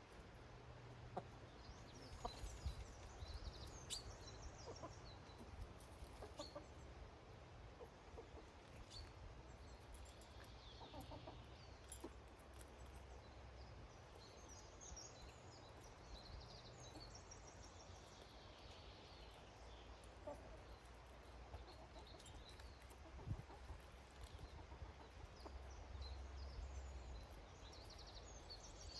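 Domestic hens clucking faintly, with small garden birds giving short bouts of high chirps and a low steady rumble underneath.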